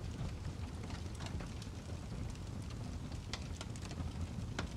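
Fireplace fire crackling: irregular sharp pops and snaps over a low steady rumble, with a louder pop about three and a half seconds in and another near the end.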